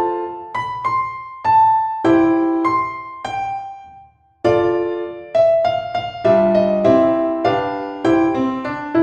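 Background piano music: a melody of struck piano notes, each fading away, with a brief pause about four seconds in before the playing resumes.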